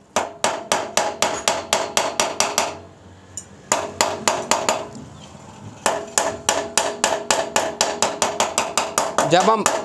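Rapid hammer blows on a steel bearing cup, tapping a new steering-head bearing race into a Honda CG125's frame head tube, with the old cup set on top as a driver. The ringing metal strikes come about five a second in three runs with short pauses. The change in their ring is the sign that the cup has seated fully.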